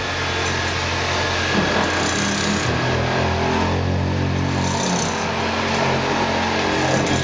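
Jackhammer breaking rock in a trench, hammering continuously.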